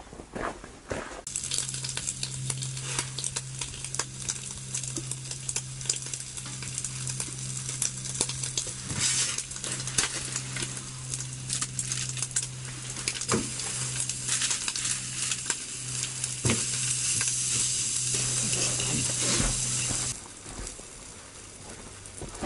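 Food sizzling and crackling in a frying pan on a wood-burning tent stove, with a steady low hum under it and a few taps of a utensil on the pan. The sizzle starts abruptly about a second in and cuts off abruptly near the end.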